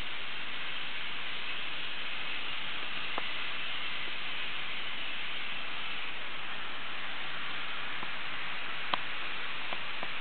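Steady hiss at an even level, with a light click about three seconds in and a sharper click near the end.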